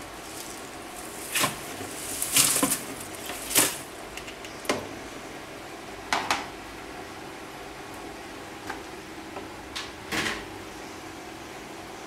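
Top-loading washing machine washing a load of leafy vegetables: a steady machine hum with short, irregular swishes and sloshes of water, the loudest a few seconds in.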